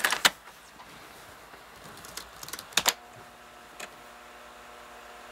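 A 3.5-inch floppy disk clicks into a Compaq laptop's floppy drive, followed about two seconds later by a quick run of keystrokes on the laptop keyboard as a DOS command is typed. About three seconds in, the floppy drive starts running with a steady hum and a single head click as it reads the disk.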